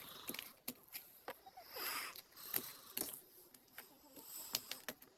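Homemade slime of liquid glue and clay being squished and pressed by hand, giving a quiet run of small, irregular clicks and pops with a soft squelch about two seconds in.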